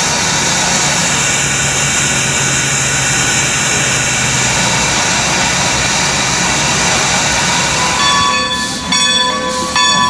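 Great Western 2-10-0 steam locomotive #90 standing with a steady, loud hiss of steam and a low hum. About eight seconds in, a steady ringing tone starts and breaks off briefly about once a second.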